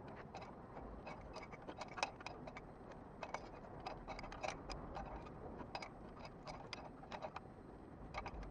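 A wrench working the oil inlet fitting on a Holset turbocharger: a run of small, irregular metallic clicks and ticks, a few each second.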